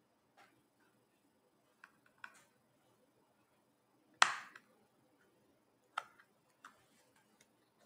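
Sharp plastic clicks and snaps as a guitar pick pries around the seam of an iPod's case, working its clips loose: a few light clicks, the loudest snap about four seconds in and another about six seconds in.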